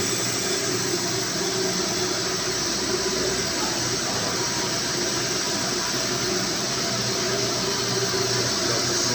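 Steady hum and hiss of running plant-room machinery in a building's pump room. It holds a constant level, with a bright hiss over several low steady tones.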